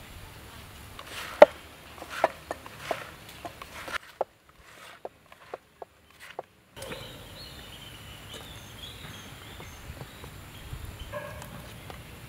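Sharp clicks and taps from handling clay pots and sliced brinjal, the loudest about a second and a half in, then birds chirping from about seven seconds in.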